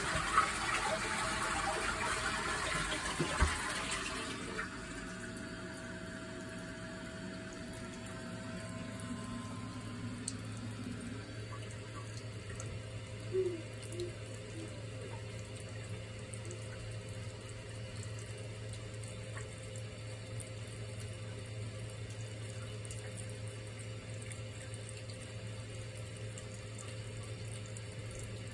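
Water running from the spout of a toilet cistern's hand-wash basin into the bowl as the tank refills. It runs louder for about the first four seconds, then settles into a quieter steady trickle with a low steady hum beneath.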